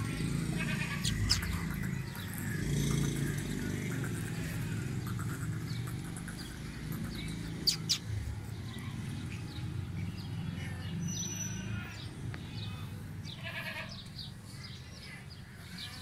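Goats bleating a few times over a low steady rumble, with a few sharp clicks, two of them close together about eight seconds in.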